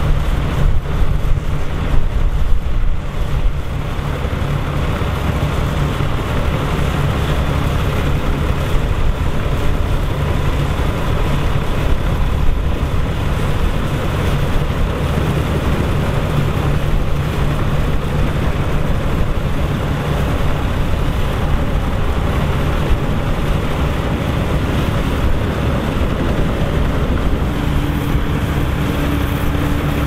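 Volvo BM 350 Boxer tractor's diesel engine running steadily under load as it pulls a trailed Dronningborg D600 combine harvester, with the combine's threshing machinery clattering through the barley. Wind buffets the microphone a few times near the start, and a steadier engine hum comes in near the end.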